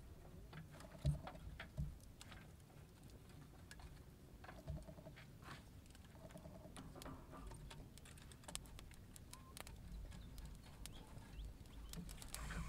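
Wood fire crackling with scattered small snaps under a clay cooking pot, and a few dull knocks of sticks against the bamboo raft, the loudest about a second in.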